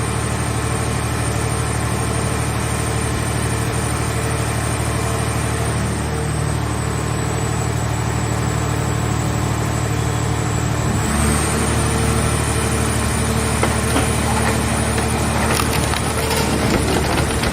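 Hydraulic car baler running with a steady hum and a thin high whine, its sound shifting about eleven seconds in; near the end come crackles and snaps of scrap car metal being crushed.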